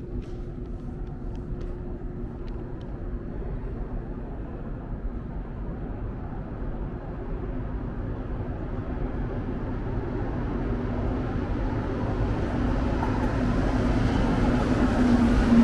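Montreal metro Azur train on rubber tyres approaching through the tunnel and pulling into the station: a steady rumble with a low hum that grows steadily louder and brighter, loudest near the end as the train reaches the platform.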